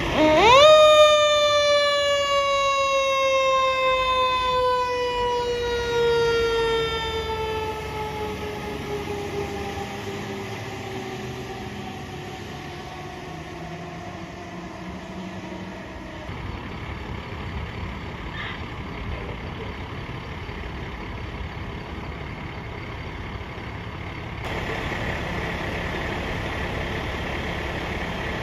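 Fire engine's mechanical siren winds up sharply about half a second in, then slowly winds down, its pitch falling steadily for about fifteen seconds until it fades out. The truck's engine runs underneath and gets louder near the end.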